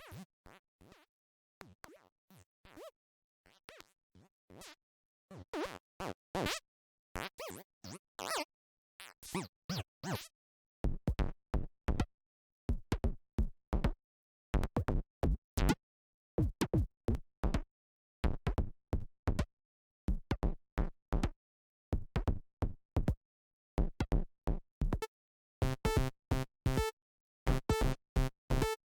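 Short synthesized percussion hits from the Surge software synthesizer, repeating in a rhythmic loop as the patch is tweaked. They start as faint noisy clicks, grow louder, gain a deep thump about eleven seconds in, and near the end take on a pitched ringing tone.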